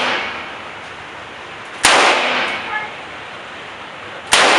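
Two gunshots about two and a half seconds apart, each sharp crack followed by a ringing echo that dies away over about a second.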